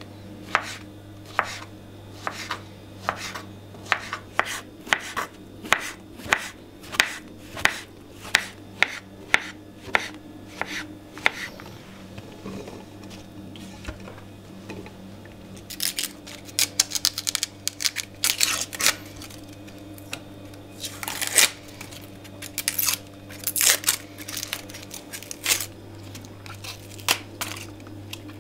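Knife chopping on a wooden cutting board at a steady pace of about two cuts a second, stopping about eleven seconds in; after a pause, quicker irregular bursts of cutting and scraping. A steady low hum runs underneath.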